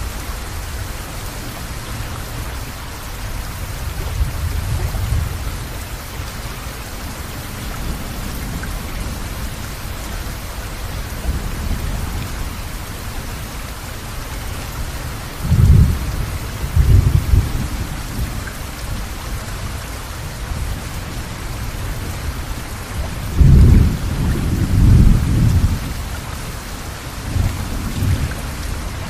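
Steady, heavy rain with low rolls of thunder; two loud rumbles come about halfway through and again some eight seconds later, with fainter rumbles between.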